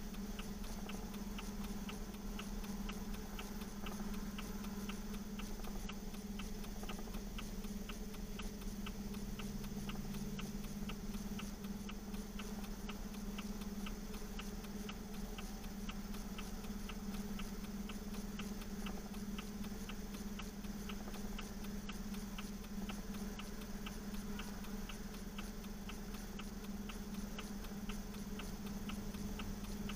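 Steady, evenly spaced mechanical ticking over a continuous low hum.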